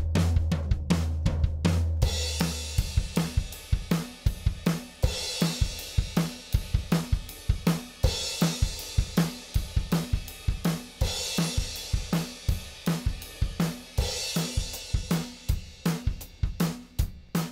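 Recorded drum kit playing a steady beat with kick, snare, hi-hat and cymbals. A low sustained bass note drops out about two seconds in, leaving the drums alone, with a cymbal wash swelling about every three seconds.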